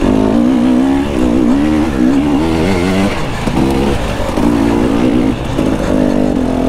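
Enduro dirt bike engine revving under throttle while riding. Its pitch wavers up and down for the first few seconds, then is held in short steady bursts.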